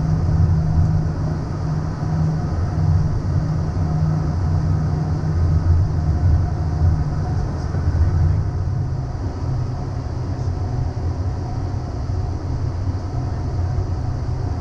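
Steady low rumble of airflow and engine noise inside the cockpit of a Cessna Citation CJ3 business jet on final approach. Its tone shifts slightly lower about eight seconds in.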